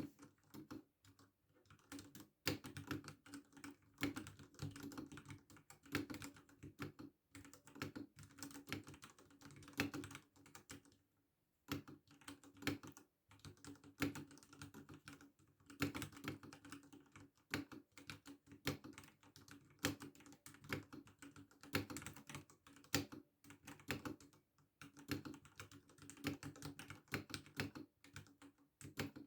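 Typing on a Ducky One 3 SF mechanical keyboard with Cherry MX Red linear switches, at a slow pace: a stream of separate keystroke clacks, with a short pause about eleven seconds in.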